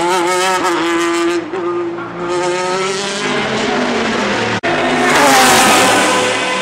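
Lamborghini Murciélago GT1 race car's V12 engine at full race pace, its pitch wavering with throttle and gear changes out of a corner and then climbing. About five seconds in, a car passes close and loud, its pitch falling as it goes by.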